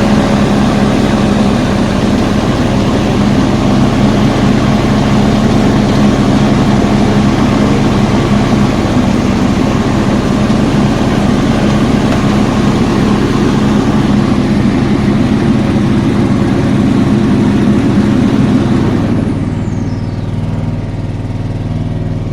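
Petrol engine of a Mountfield R27M ride-on mower running steadily while warming up. About nineteen seconds in the sound drops to a quieter, lower run, with a faint whine falling in pitch as it winds down.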